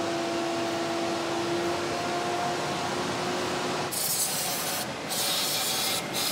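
Compressed-air blow nozzle blowing dust out of a removed railcar brake-pipe fitting: loud hissing blasts that start about four seconds in and come as three bursts with short breaks. Before that there is a steady low hum, with rag rubbing on the fitting.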